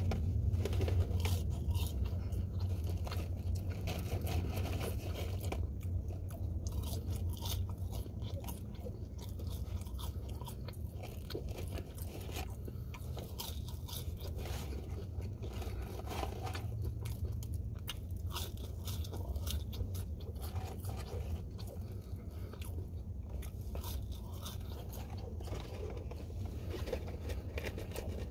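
Close-up chewing and crunching of fast food, fries and a bacon cheeseburger, with many small crunches and mouth clicks throughout, over a steady low hum.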